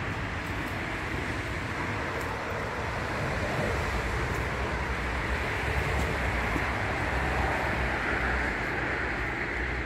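Steady outdoor background noise: an even rushing hiss over a low rumble, with no single event standing out.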